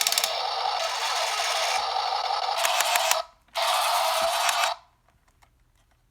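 A toy backhoe loader's mechanism running in two bursts with a rapid clicking whir: a long one, a short pause, then a second of about a second, each cutting off suddenly.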